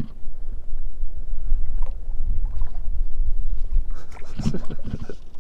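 Wind rumbling and buffeting on the microphone, with a brief muffled voice near the end.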